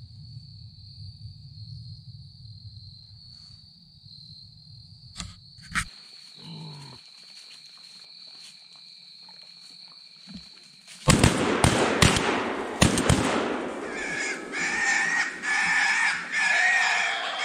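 A faint steady high whine over a low hum. About eleven seconds in this gives way to a burst of loud sharp bangs and commotion, followed by feral hogs squealing.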